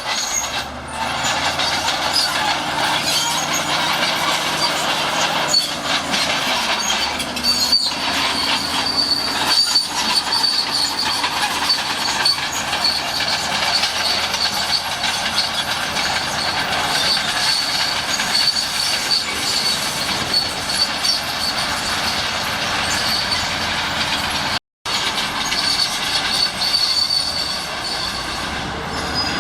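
Shantui SD16 crawler bulldozer working: diesel engine running under load while the steel tracks squeal and clank. The sound cuts out for a moment near the end.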